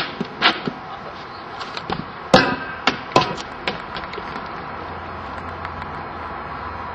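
Inflatable space hopper bouncing on a tarmac road: a run of thumps and sharp knocks, the loudest about two and a half seconds in, stopping about four seconds in. After that only a steady low hum remains.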